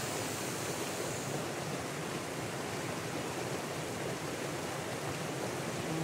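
Stream rushing over rocks: a steady, even hiss of flowing water.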